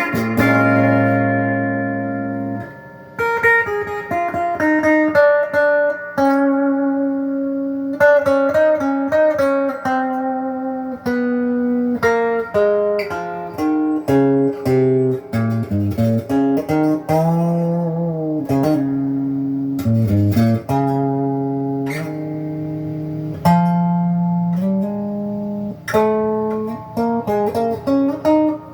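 Electric guitar played clean through an amplifier on the stock bridge pickup of a Les Paul–style copy: a run of picked single notes and held chords, with a couple of string bends around the middle.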